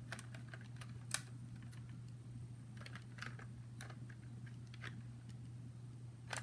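Light scattered clicks and taps of plastic Lego parts as a brick-built pump shotgun is handled, with one sharper click about a second in. A low steady hum runs underneath.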